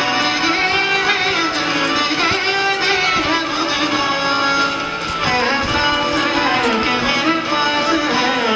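Instrumental passage of a song, guitar-led, with melodic lines and no singing.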